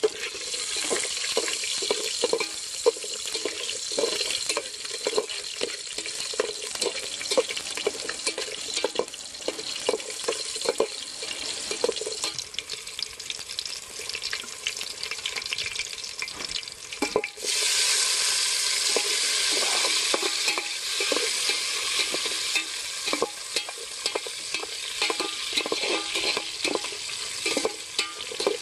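Shallots, cumin seeds and peppercorns sizzling in hot oil in an aluminium pot, stirred with a metal ladle that scrapes and knocks against the pot's sides and bottom. The sizzle gets suddenly louder about two-thirds of the way through.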